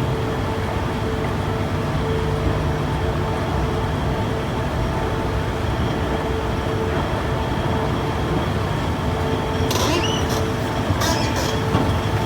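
2006 Toshiba escalator running with a steady mechanical drone and a pulsing hum. About ten seconds in it gives a series of sharp high squeaks (キーキー), an abnormal noise from the escalator.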